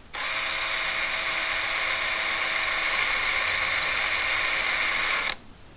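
Cordless drill running at a steady high speed, drilling out a broken stud in a VW 2-litre air-cooled cylinder head; it starts at once and cuts off suddenly near the end.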